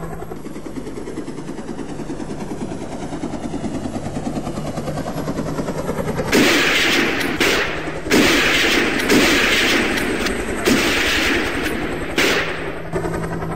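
A vehicle engine running steadily, then, about halfway through, several bursts of rapid gunfire, each lasting up to about a second.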